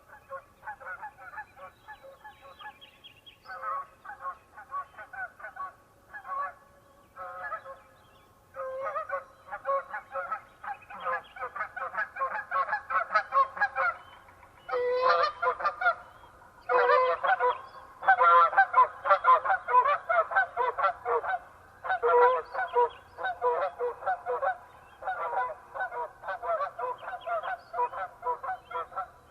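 A flock of geese honking in flight, many calls overlapping in quick runs. The calls are sparse at first, then grow busier and louder about halfway through, peaking a few seconds later before easing slightly.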